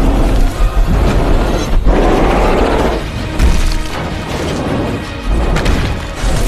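Loud dramatic soundtrack music with deep booms and a crashing impact about two seconds in.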